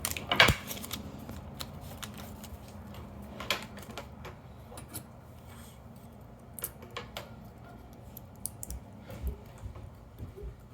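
Light metal clicks and taps from a Paclock 90A Pro padlock and the small tools handling it during disassembly. There is a sharp clatter at the very start and another about three and a half seconds in, then scattered faint ticks.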